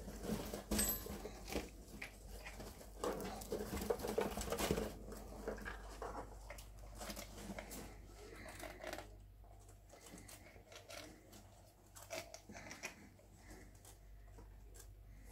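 Pet rats rustling in loose cage bedding and crunching food: a dense patter of small scratches and crackles, loudest in the first five seconds, then quieter scattered rustles and nibbling.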